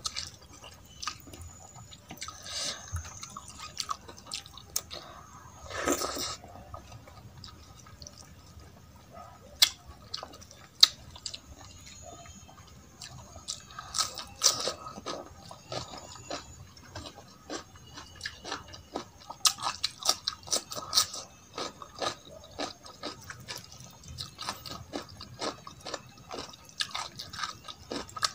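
Close-miked eating by hand: wet squishing as fingers mix rice and dal in a steel plate, and chewing with many short sticky mouth clicks and smacks.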